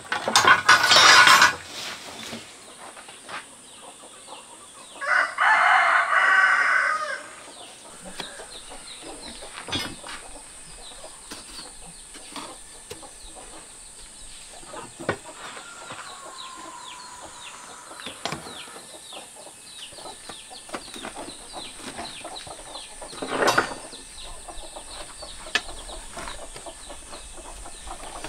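A rooster crowing twice, once right at the start and again about five seconds in, each call lasting about a second and a half. Between the calls come small scattered taps and scrapes of hand work on a wet cement stove top.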